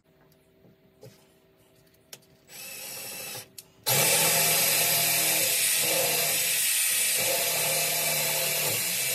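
DeWalt cordless drill boring through a painted wooden door. A short squeeze of the trigger comes about two and a half seconds in, then from about four seconds the drill runs steadily at full speed through the wood.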